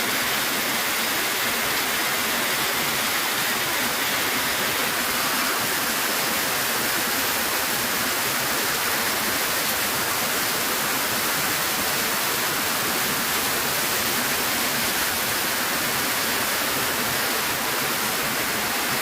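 Heavy rain falling, a steady, dense hiss with no breaks.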